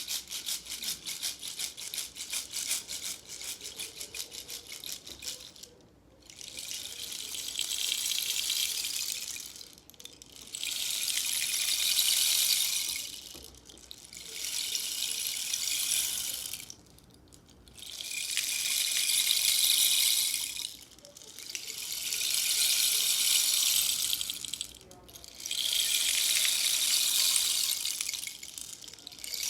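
Rainstick played: shaken with quick rattling at first, then tipped over again and again, each turn a rising and falling rush of pattering beads lasting three to four seconds, six in all.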